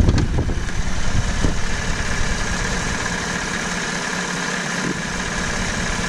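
Chevrolet Silverado's 5.3-litre V8 idling with the hood open, a brief low thump at the start, then a steady run with a light, quick tick from the top of the engine. This is the lifter or valve tick common to these 5.3 engines, which the owner considers a normal noise and nothing to worry about.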